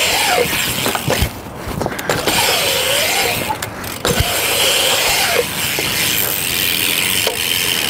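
BMX bike riding through a concrete skatepark bowl: tyres rolling on concrete with a steady rush and a whirring that rises and falls in pitch, the rear hub ticking like a ratchet while coasting, and a couple of short knocks from the bike.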